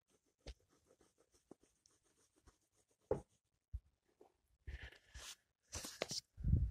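Pencil scratching on paper as straight lines are drawn, faint strokes with a few soft taps. Louder rustling and knocks come in about two-thirds of the way through.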